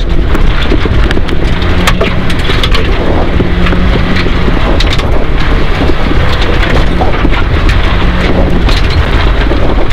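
In-car sound of a rally car at speed on a gravel forest road: the engine running under a loud, steady rush of tyre and gravel noise, with many sharp clicks of stones striking the car.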